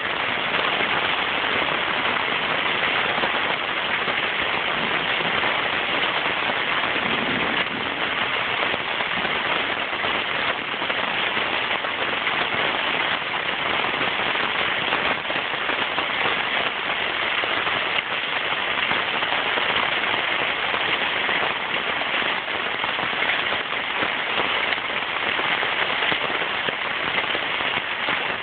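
Heavy rain falling steadily in a downpour, an even hiss of drops with fine scattered spatters throughout.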